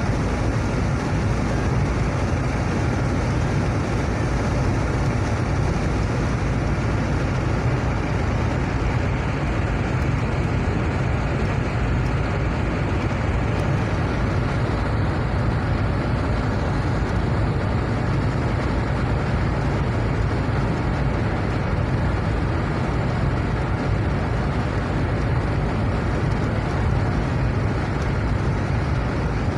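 Steady road noise heard inside a car cruising at highway speed: a constant low rumble of tyres and engine with no change in pace.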